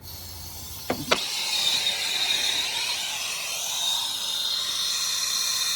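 A small acetylene torch, fed from an MC tank, lit with two sharp clicks about a second in, then its flame hissing steadily under a melting pot to heat water.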